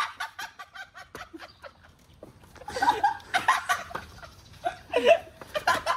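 Several young men laughing and chuckling together, quick soft snickers at first, then louder laughs from about three seconds in.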